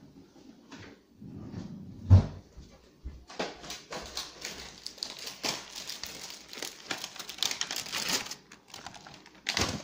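Plastic wrapper crinkling and crackling densely for about five seconds as Oreo cookies are handled for a garnish. There is a knock about two seconds in and another just before the end.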